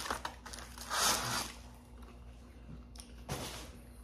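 Paper fast-food wrapper rustling as a hand picks food out of it, with a louder rustle about a second in and another shorter one a little after three seconds.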